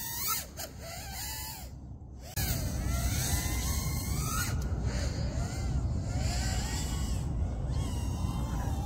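FPV quadcopter's motors and propellers whining, the pitch gliding up and down with the throttle; about two and a half seconds in it gets louder, with added rumble and wind noise as the quad flies fast and low.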